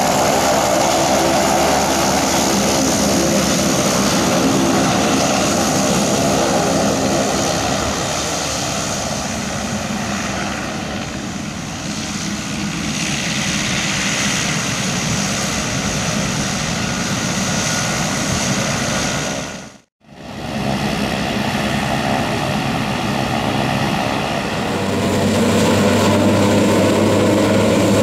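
Cessna 208B Grand Caravan's Pratt & Whitney PT6A turboprop running as the aircraft taxis: a steady turbine whine over the propeller's drone. The sound drops out for a moment about two-thirds through, then comes back and grows louder near the end.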